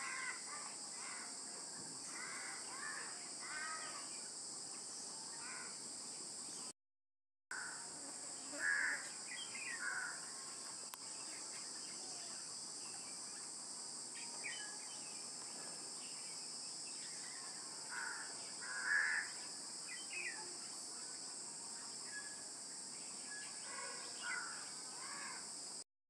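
Crows cawing now and then over a steady high-pitched insect drone, the loudest caws about nine and nineteen seconds in. The sound drops out completely for under a second about seven seconds in.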